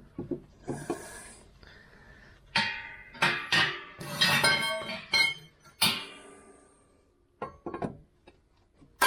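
Metal clinking and knocking, several strikes with a short ring after them, from tools or parts being handled at a car's front suspension.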